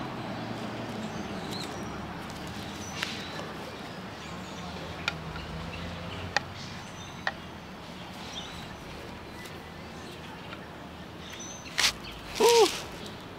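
Outdoor background noise with faint bird chirps and a few sharp clicks scattered through it. Near the end comes a louder click, then one short, loud call that bends in pitch.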